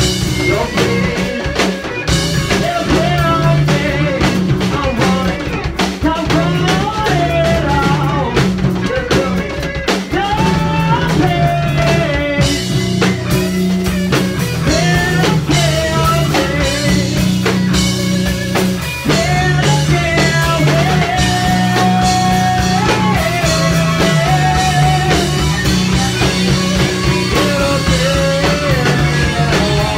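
Rock band playing live: full drum kit with cymbals, distorted electric guitar and electric bass, with a wavering melody line held and bent above the steady low notes.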